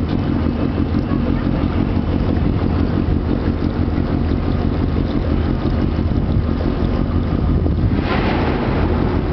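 A sailboat's engine running steadily under way, with wind on the microphone; a louder rush of noise comes in about eight seconds in.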